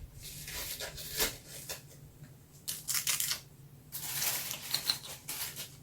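Packaging wrapper crinkling and tearing in several short crackly bursts, as a mini Cornetto ice cream cone is unwrapped.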